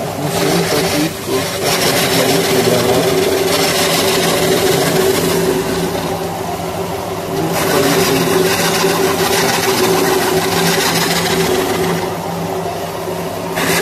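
Electric motor of a dough machine running steadily with a low hum and a mechanical rushing noise while a ball of pizza dough is fed into it by hand; the noise eases off briefly near the end.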